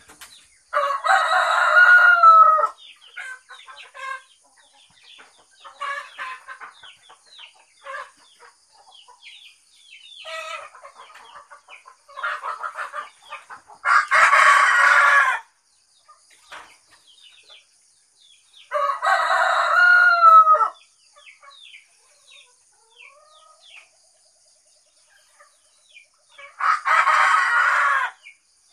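Roosters crowing four times, each crow lasting about two seconds, with small birds chirping faintly in between.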